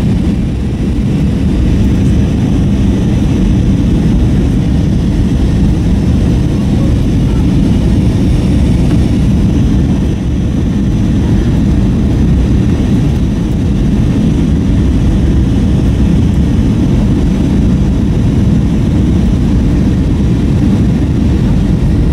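Airbus A321 cabin noise heard from a rear window seat: a steady, loud jet-engine and airflow roar, low and even.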